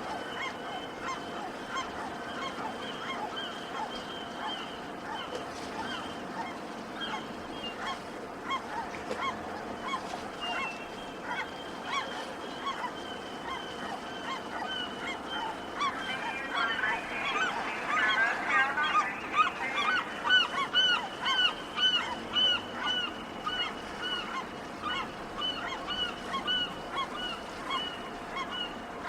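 Many gulls calling at a fishing harbour, short cries overlapping over a steady faint background tone. A little past the middle the calls crowd together and grow louder, then carry on as quick, evenly repeated cries.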